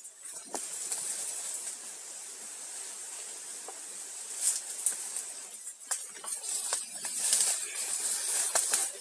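Outdoor forest ambience: a steady high hiss with a thin high whine, broken by scattered rustles and clicks that grow busier from about halfway through.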